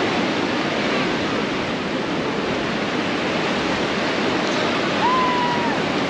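Shallow ocean surf washing in over a flat sandy beach: a steady rush of water. About five seconds in, a brief high-pitched call sounds over it.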